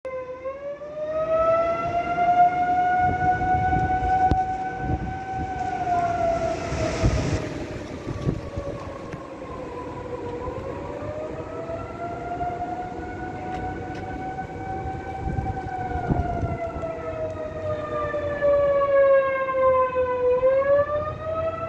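Outdoor tornado warning siren sounding the alert: one long wail whose pitch slowly rises and falls in cycles of about ten seconds. Gusts of wind rumble on the microphone now and then.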